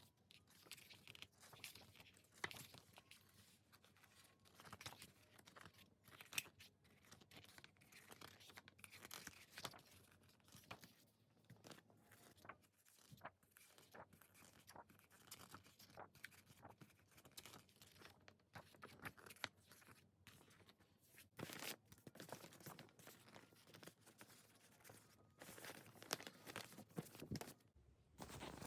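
K-pop album packaging being unwrapped and handled: faint irregular crinkling, tearing and rustling of plastic wrap and paper, with a few sharper clicks and taps as the pieces are handled.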